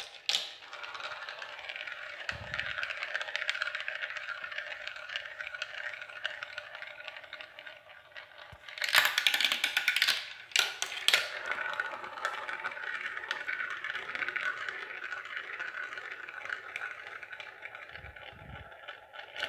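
A marble rolling through a plastic marble run, rattling continuously along the chutes and tubes, with a louder clatter about nine seconds in and a few sharp clicks just after. Near the end it circles around a plastic funnel.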